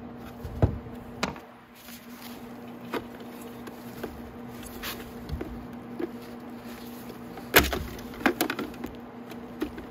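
Scattered clicks and knocks of plastic parts as the headlight assembly and plastic fairing halves of a 125cc motorcycle are handled and pulled apart, the loudest knock about three quarters of the way through, followed by a quick cluster of clicks. A steady low hum runs underneath.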